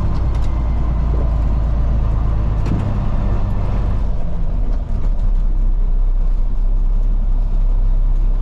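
Freightliner truck's diesel engine running steadily under way, a deep rumble with a brief drop in level about five seconds in.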